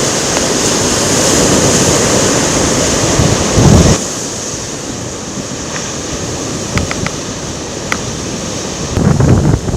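Strong typhoon wind blowing and buffeting the microphone in heavy gusts. It drops off abruptly about four seconds in, with a few faint ticks later, and surges again near the end.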